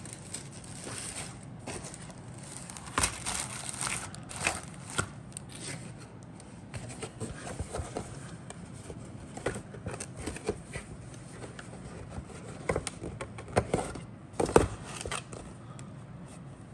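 Model-kit paper sheets being handled: irregular rustling and crinkling with sharp clicks, loudest about three seconds in and again near the end.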